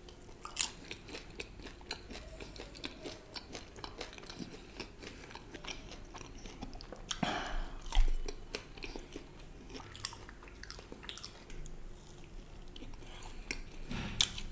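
Close-miked chewing of a fried snack: wet mouth sounds with scattered small crunches and clicks, and one louder sudden noise about eight seconds in.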